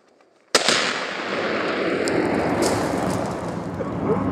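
A .30-06 rifle shot detonates a Tannerite binary explosive target: one sharp blast about half a second in, followed by a long echoing boom that carries on to the end.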